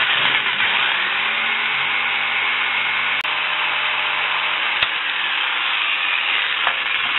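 Electric jigsaw running steadily as its blade cuts through a thick plexiglass sheet, with a split-second break about three seconds in.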